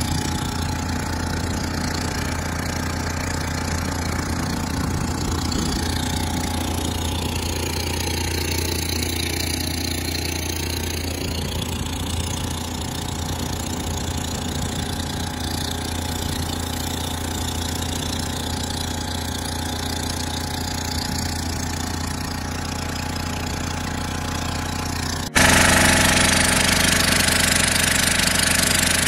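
Motorboat engine running steadily at cruising speed with a low, even hum, heard from aboard the wooden boat. Near the end the sound jumps suddenly louder, with more hiss.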